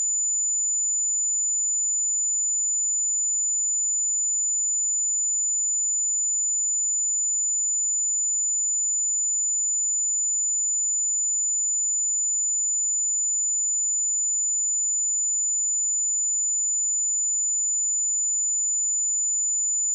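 A steady 7004 Hz sine-wave test tone, one pure high-pitched whistle held unchanged at a constant level.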